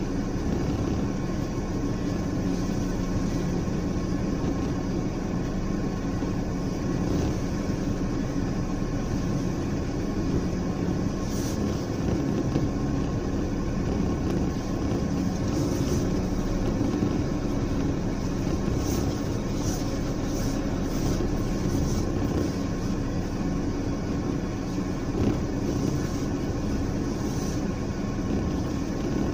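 Steady low drone of motor-vehicle engines, with a few faint high clicks scattered through the middle and later part.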